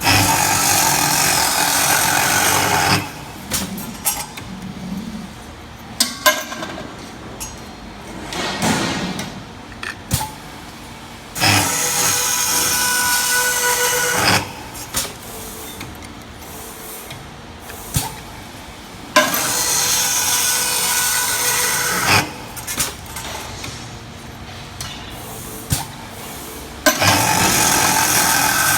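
Automatic stainless-steel cutting machine making repeated cuts: four loud cutting bursts of about three seconds each, roughly eight seconds apart. Quieter clicks and knocks come between the cuts.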